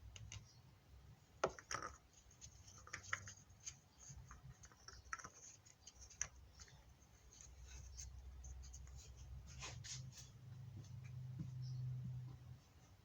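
Faint, scattered small clicks, taps and light scraping of hands handling things, with a low hum that swells over the last few seconds.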